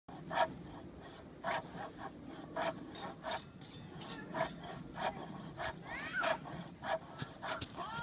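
Folding pruning saw rasping through a dead log, hand-sawn in short, uneven strokes, roughly one to two a second.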